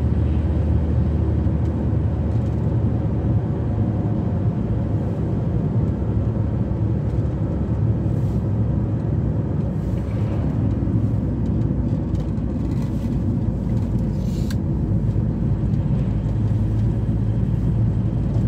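Interior cab noise of a VW T4 van driving: a steady low engine and road rumble, swelling slightly near the end.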